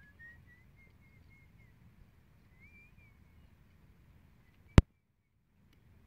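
Faint open-field ambience with a distant bird's thin, warbling call in the first few seconds. About five seconds in, a single sharp click, after which the sound drops out for about a second.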